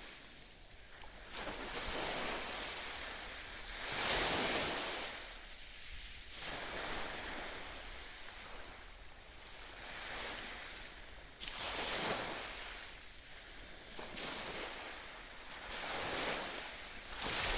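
Waves washing ashore: a hiss that swells and fades every few seconds.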